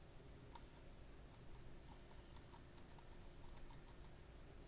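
Near silence: a low steady room hum with a few faint, scattered clicks from a computer keyboard.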